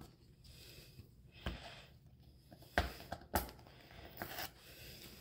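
A small minifigure package being handled and opened by hand, its sticker seal being peeled: a few faint sharp clicks and crackles, the strongest a little past three seconds in, with a brief rustle after it.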